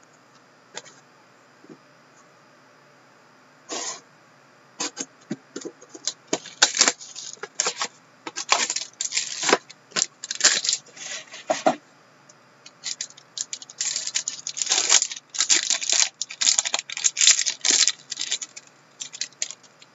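Plastic and foil wrapping of a sealed hockey card pack being torn open and crinkled by hand: a long run of short, sharp crackles that starts about four seconds in.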